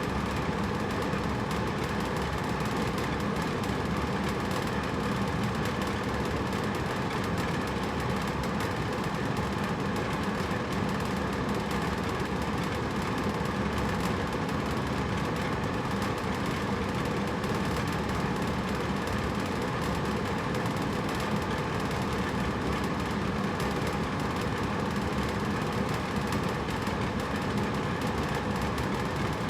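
Hotel room air conditioner running with a steady, even hum and whoosh, with no change in level.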